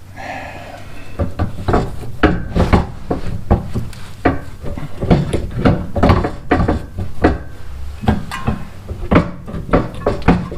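Irregular metal clanks, knocks and clicks from hand tools working the parking brake cable loose from a rear brake caliper, a few strikes a second.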